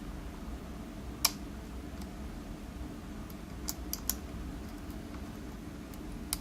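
Lock picking: a few short, sharp clicks from a pick and tension tool working the pins in a lock. One loud click comes about a second in, three close together near the middle, and another near the end, over a low steady hum.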